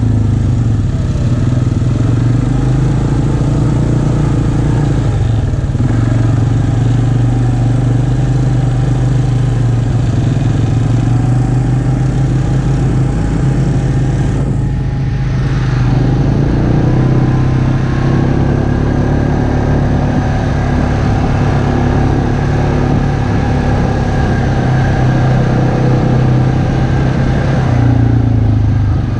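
ATV engine running steadily at trail-riding speed, its pitch easing off briefly about halfway through and then rising again.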